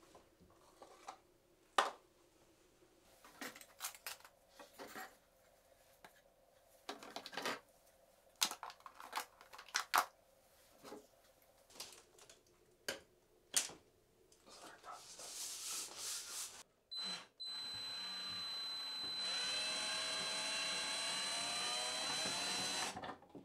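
Scattered knocks and clicks of handwork, then a small handheld power tool's motor running steadily for about six seconds near the end, with a high whine that cuts off just before the end.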